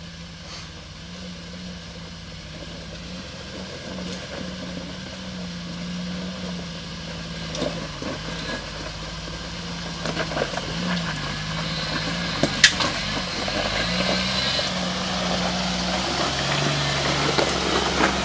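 Jeep Wrangler YJ engine running at low speed as the Jeep crawls up a rocky trail, growing steadily louder as it approaches. A few sharp knocks stand out, the loudest about two-thirds of the way through.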